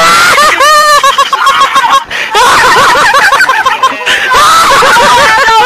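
High-pitched, warbling laughter and shrieks, loud and without a break.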